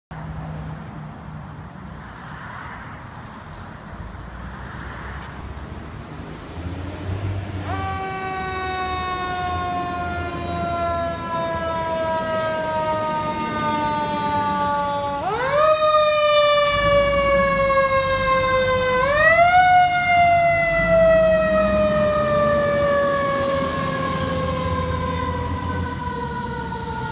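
Fire engine siren on a code 3 run: the wail comes in about eight seconds in and slowly falls in pitch, then twice rises sharply and winds slowly down again, growing louder as the engine approaches, over a low engine and traffic rumble.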